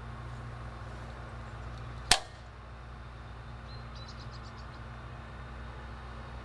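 A single sharp snap from a STIHL AutoCut 25 mowing head about two seconds in: the mowing line is pulled hard and the spool jumps up into place. It sounds over a steady low hum.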